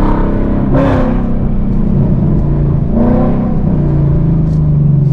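Ford Mustang GT's 5.0 V8 exhaust running at a steady idle, the revs rising slightly and holding about three and a half seconds in.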